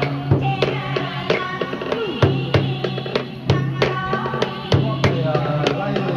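Traditional Vietnamese water-puppet theatre music: repeated drum strikes, each leaving a low ringing tone, under a melody with sliding pitches.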